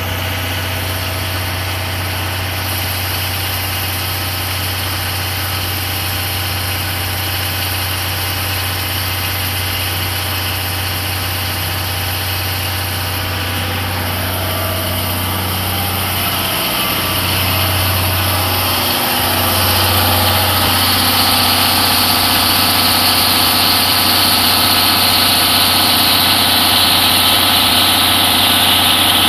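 Under-floor diesel generator of a 14-series SuHaFu 14 passenger coach running steadily with a low hum. It grows louder about two-thirds of the way in.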